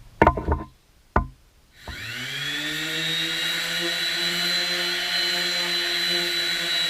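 A few handling knocks and a sharp click, then an electric power tool's motor spins up about two seconds in and runs steadily at full speed with a high whine.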